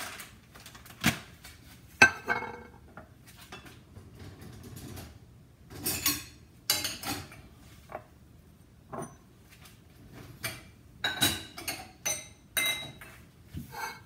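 Dishes and cutlery clinking and clattering as they are handled and set down, in irregular knocks with a few short ringing clinks.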